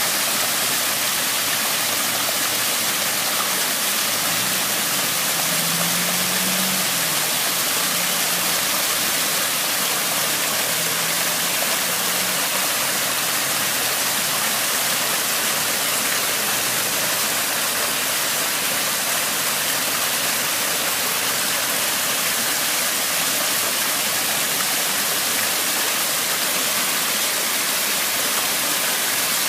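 Steady rushing water, an even hiss that holds at one level throughout.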